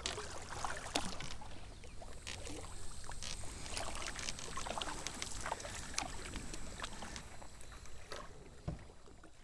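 A canoe being paddled on calm water: water noises from the paddle and scattered light knocks, with a faint steady high whine from about two seconds in. It all fades out near the end.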